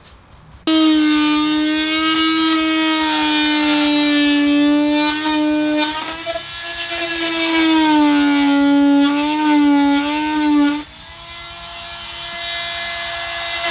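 Corded handheld power tool working the wooden edge of a van's step. It runs with a strong, high motor tone whose pitch wavers and sags as it works. About eleven seconds in, it drops to a quieter, steadier, slightly higher note.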